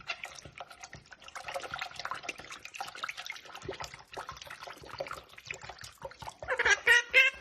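Running water splashing and trickling, with many small irregular splashes. A loud sing-song voice starts near the end.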